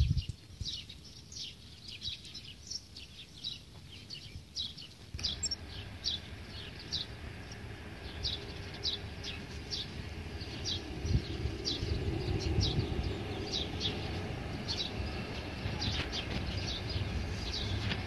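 Small songbirds chirping, short high calls repeating every fraction of a second to a second. From about five seconds in, a low steady rumble rises underneath the birdsong.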